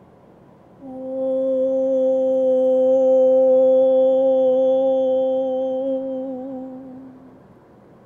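A woman voicing the long "hohhh" heart healing sound of qigong: one steady vowel on a single pitch, starting about a second in and held for about six seconds, wavering slightly as it fades near the end.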